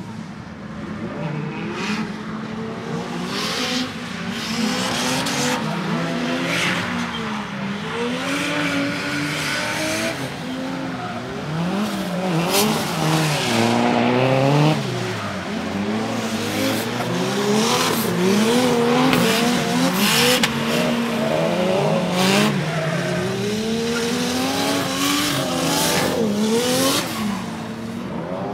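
Nissan 350Z drifting on a wet track, its engine revving up and down again and again as the throttle is worked through the slides.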